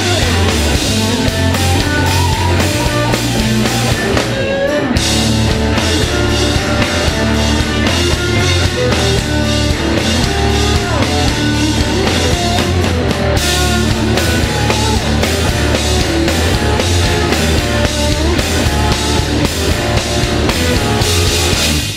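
Loud backing music with a steady drum beat.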